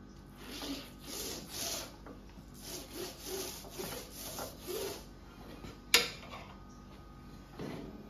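Small short-nap paint roller rolling hot beeswax onto plastic beehive foundation in a wooden frame: a run of quick back-and-forth strokes, about two a second, for some five seconds, then one sharp click.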